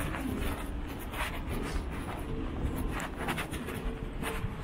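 Urban outdoor ambience: a steady low rumble of city traffic, with footsteps scuffing on paving at a walking pace. A faint steady hum joins in after the middle.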